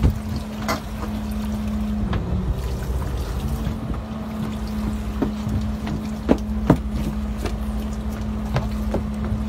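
Fishing boat's engine running steadily with a low hum and rumble, the hum wavering briefly about two seconds in. A few sharp knocks on deck cut through it, two of them close together past the middle.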